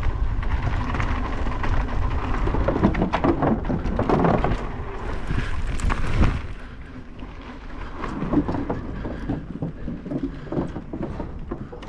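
Wind buffeting a helmet-mounted action camera's microphone as a mountain bike descends a dirt trail, with tyres crunching over gravel and the bike clattering over bumps. It eases a little past the middle, then rattles again as the tyres roll onto a wooden boardwalk near the end.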